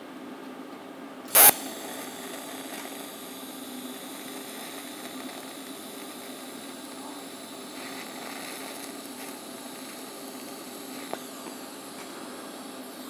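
TIG welding torch tacking a sheet-metal corner joint: a short, loud high-frequency arc-start crackle about a second and a half in, then the arc running with a steady faint hiss for several seconds before it stops, with a small click near the end. A low steady hum runs underneath.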